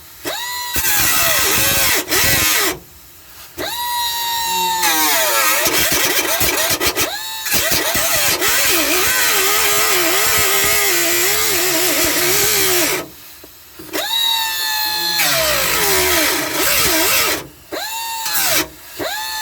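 High-speed power cutting tool running in repeated trigger pulls, cutting through sheet-metal floor: after each of several short stops its whine climbs back up in pitch, then wavers as it bites into the metal, over a steady hiss. This is the old floor pan being cut free.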